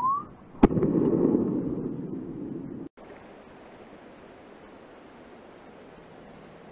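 A single rifle shot at a roe deer, a sharp crack whose echo rolls through the forest for about two seconds before cutting off suddenly. A short rising whistle comes just before the shot.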